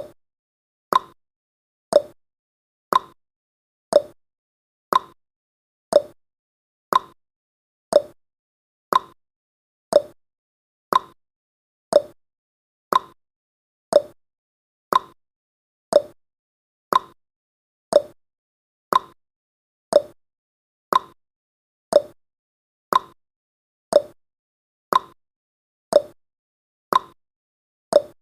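Countdown timer's clock-tick sound effect, one sharp tick every second, alternating between a higher and a lower tick like a tick-tock.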